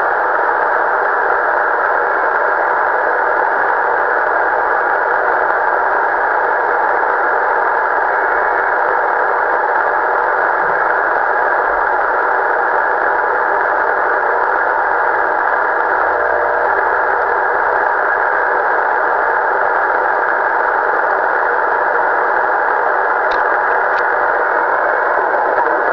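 Steady hiss of band noise from a Kenwood HF transceiver's speaker as it is tuned across the 11-metre band with no station coming through.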